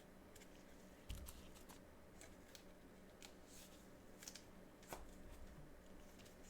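Near silence with faint scattered clicks and rustles of trading cards and packaging being handled, over a low steady hum.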